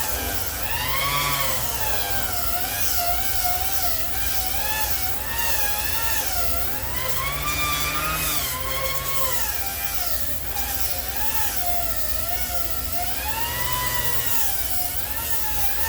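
Ryobi single-speed electric angle grinder with a sanding disc, shaping a wooden handle. Its motor whine keeps dipping and rising in pitch as the disc is pressed into the wood and eased off. It cuts extremely aggressively.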